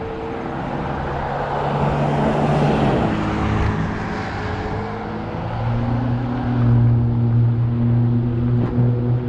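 Road traffic close by: a vehicle's rushing noise swells and fades a few seconds in, then a steady low engine hum grows louder in the second half.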